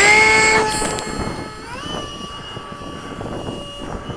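Freewing Seagull's 64 mm electric ducted fan whining loudly at high throttle as the glider is hand-launched, then easing off. About two seconds in its pitch rises again and settles into a steady, quieter whine.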